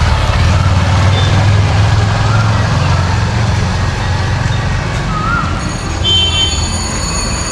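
Busy street noise with a motor vehicle engine running close by, its low rumble fading after about four seconds; a steady high electronic tone starts near the end.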